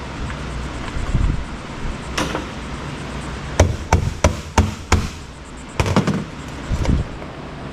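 Hand tool striking and knocking at the casing of a piece of electronic equipment to break it open for scrap. A few dull thumps, then a quick run of about six sharp knocks around the middle, and a few more near the end.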